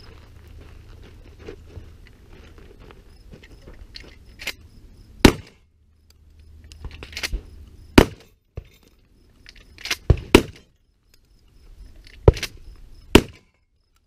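A string of gunshots from a cowboy action shooter firing at steel targets, starting about four seconds in and spaced roughly one to two seconds apart, with a light rumble of wind and handling noise before the first shot.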